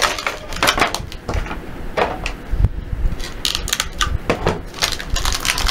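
Scissors cutting through a stiff clear plastic blister pack, with a run of irregular sharp clicks and crackles of the plastic.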